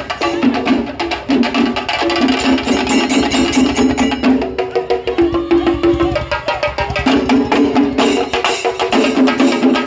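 Traditional Kerala temple ensemble music: fast, dense drum strokes under a melody of long held notes.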